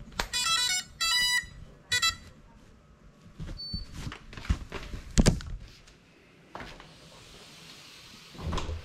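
FPV quadcopter's motors playing the speed controllers' startup beeps: three quick groups of stepped electronic tones, the sign that the flight battery has just been plugged in. A few sharp knocks follow, the loudest a little past the middle.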